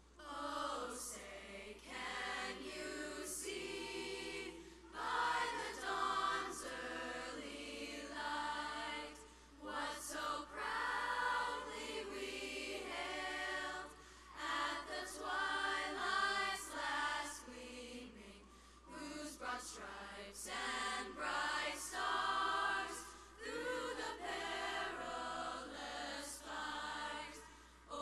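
Youth choir of mixed voices singing a national anthem together, phrase by phrase, with short breaths between phrases.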